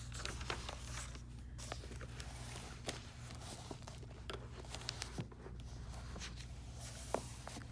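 Paper workbook pages being turned and rustling under a hand, with a few soft taps, over a steady low hum.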